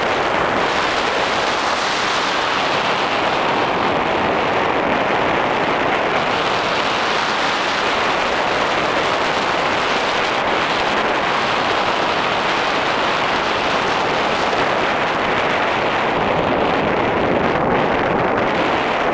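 Steady rushing of airflow over the microphone of a camera held out on a pole from a tandem paraglider in flight: wind noise, with no engine or voices.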